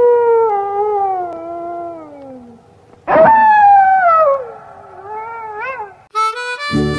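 Two long, loud wolf howls, each starting high and sliding down in pitch; the second ends in a wavering rise. Harmonica and acoustic guitar music starts near the end.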